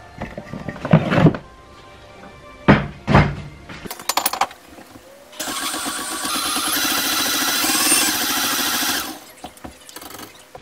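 Electric mixer beating cake batter: the motor starts in the second half, runs steadily for almost four seconds, speeding up partway through, then stops. A few knocks come before it.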